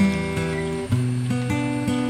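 Background music: an acoustic guitar playing sustained plucked chords, with a change of chord about a second in.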